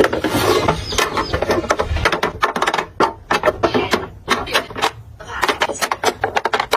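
Plastic lip tint tubes clicking and clattering against each other and the clear acrylic drawer as they are set in one by one: a quick run of light taps with brief pauses.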